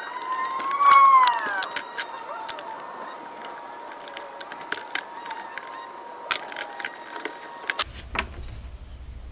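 Metal hand tools clinking and knocking irregularly against engine parts and pulleys, with a short squeal that rises and falls about a second in over a steady high tone. About eight seconds in, the sound changes to a low hum.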